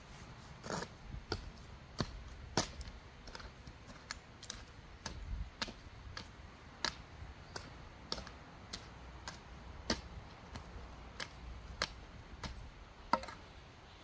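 A series of sharp, irregular clicks and light knocks, roughly one or two a second.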